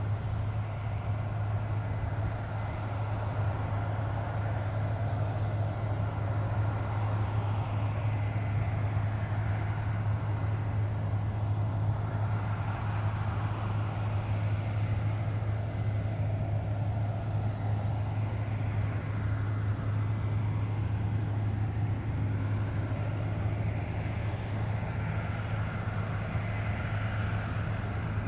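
Combine harvester at work, unloading grain on the move into a tractor-drawn trailer alongside, heard as a steady low engine drone with the tractor running with it.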